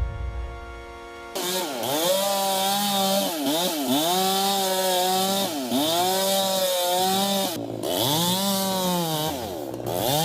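Chainsaw running at high revs, its pitch sagging and recovering several times as the chain loads up in the cut.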